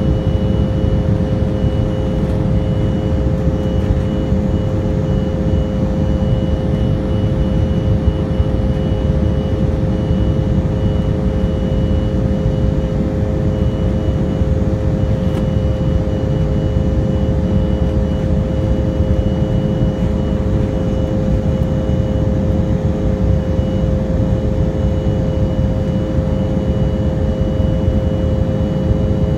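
Steady cabin noise of an Embraer 175LR in climb: a low rumble of airflow and its two General Electric CF34-8E turbofans, with a constant hum and a faint thin high whine on top.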